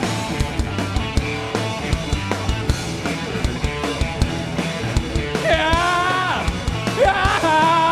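Live punk-rock band playing between sung lines: a drum kit beating steadily under guitars and bass, with a melodic line coming in about five and a half seconds in and again near the end.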